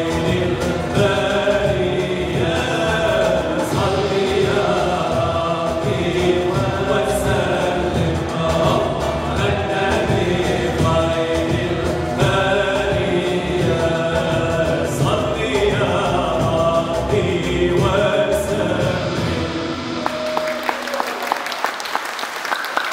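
Male vocal group singing an Islamic devotional song in harmony, accompanied by a long-necked lute, an end-blown flute, a box drum and a keyboard. The song ends about 20 seconds in and audience applause starts.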